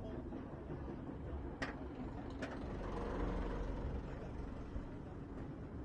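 Behemoth roller coaster train cresting the lift hill and tipping into the first drop: a low rumble of the train on the track, with a rush of air building a little about three seconds in. Two sharp clicks come before it.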